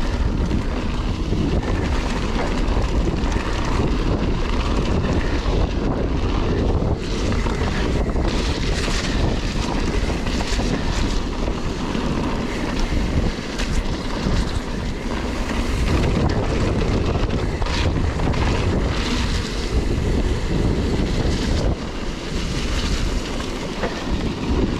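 Steady rush of wind on the microphone over mountain bike tyres rolling on a wet, sandy gravel track, with occasional knocks as the bike goes over bumps.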